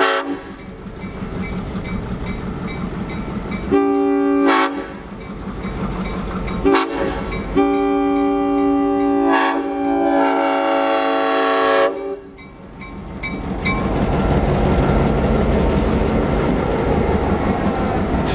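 Nathan M5 five-chime locomotive air horn: a short blast about four seconds in, a very brief toot near seven seconds, then a long blast of about four seconds. After the horn stops, the EMD F7 and GE U23B diesel locomotives pass close by with a loud, steady engine rumble.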